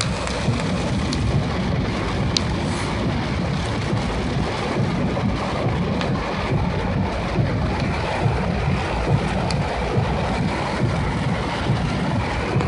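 Heavy rain pelting a car's roof and windows, heard from inside the car: a steady dense rush with scattered sharp ticks of single drops.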